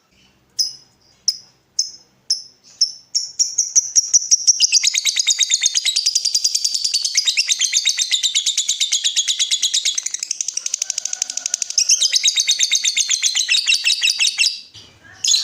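Lovebird calling: a few sharp, high chirps spaced about a second apart, then quickening into a long, fast chattering trill of rapid chirps lasting about ten seconds before it stops.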